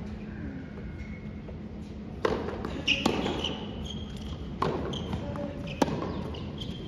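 Tennis ball struck by rackets and bouncing on a hard court: a handful of sharp hits, a second or two apart, starting about two seconds in.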